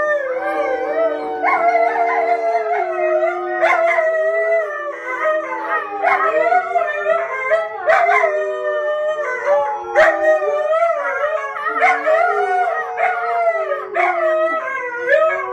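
Puppies howling without a break, long wavering howls at two different pitches overlapping, with a few short sharp yips cutting in.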